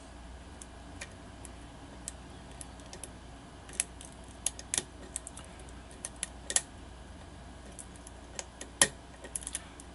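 Light, irregular metallic clicks of a lock pick working the pins of a pin-tumbler challenge lock, with the pins clicking as they are pushed and released while the lock is eased back out of a false set. One sharper click stands out near the end.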